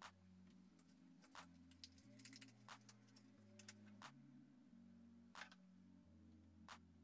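Near silence, broken by about seven faint, sharp clicks and taps of plastic plant pots and a plastic tray being handled and set down on a table. Faint low background music runs underneath.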